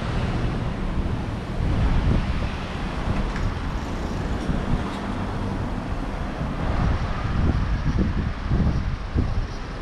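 Street traffic noise, with wind buffeting the microphone in uneven gusts.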